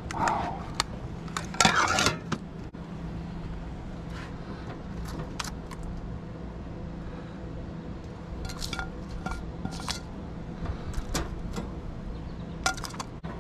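Metal tongs clicking and scraping against a smoker's grill grate as smoked fish are lifted off and set on a plate. There is a louder rattle about two seconds in, and scattered light clinks after it. A steady low hum runs underneath.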